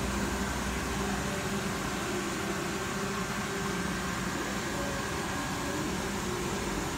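Steady mechanical hum with an even hiss, like running equipment.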